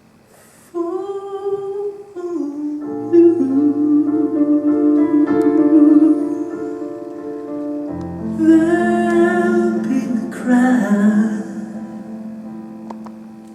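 Music: a wordless sung or hummed melody over sustained keyboard chords, with a low bass note coming in about eight seconds in, then fading away near the end.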